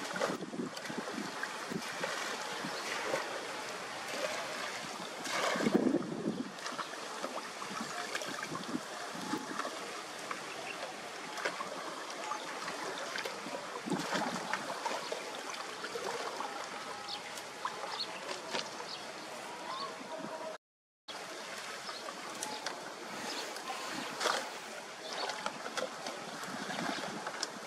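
Shallow muddy canal water sloshing and splashing as a man wades and sweeps a long-handled net through it, then pulls trash from a clogged drain by hand, with irregular splashes throughout. The sound cuts out briefly about two-thirds of the way through.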